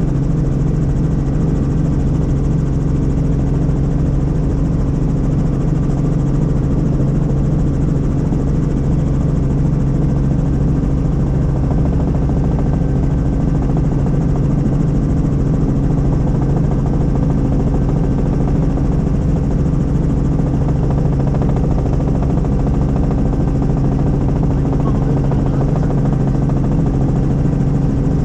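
Helicopter in flight: a steady, loud drone of engine and rotor with a constant low hum that does not change.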